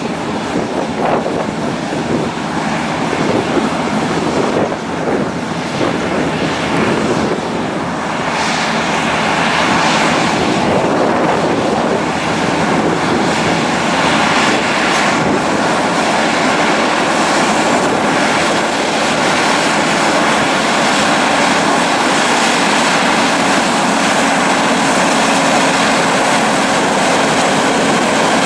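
Heavy diesel trucks, a Mack Titan and a Kenworth T909 working together on an oversize load, running under load as they drive past, their engines and tyres a loud steady rumble that grows louder after about 8 seconds.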